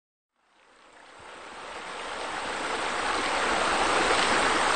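Rushing, splashing water falling from rock waterfalls into a pool, fading in from silence and growing steadily louder over about three seconds, then holding steady.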